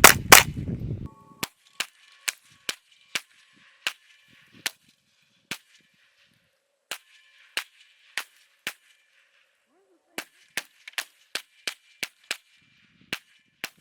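A gun being fired repeatedly: a fast string of loud shots in the first second, then about twenty quieter, sharp single shots at uneven intervals, coming faster near the end.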